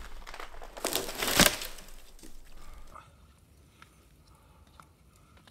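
Crunching and scuffing in deep snow, loudest a little over a second in and dying away by about three seconds, leaving only a few faint ticks.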